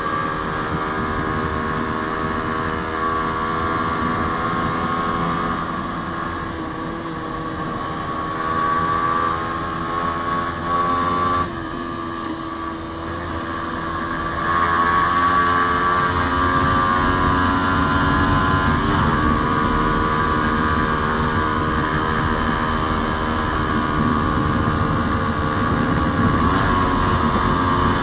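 Yamaha Sniper 150's single-cylinder four-stroke engine running through a JVT aftermarket exhaust at steady cruising revs. The revs dip briefly about 11 seconds in. The engine gets louder from about 15 seconds on, with short dips in pitch near 19 and 26 seconds.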